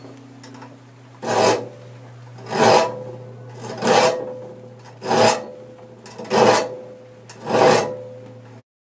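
A file rasping across the teeth of a two-handed crosscut log saw, sharpening it: six slow, even strokes about one and a quarter seconds apart.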